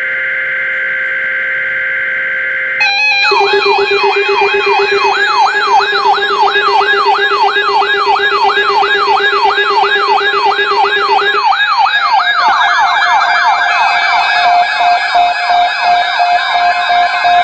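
Emergency alert tones. First a steady high two-note tone for about three seconds. Then a siren-like alert tone sweeps up and down about three to four times a second over a steady lower tone. About twelve seconds in, the sweeping speeds up and the held tone changes.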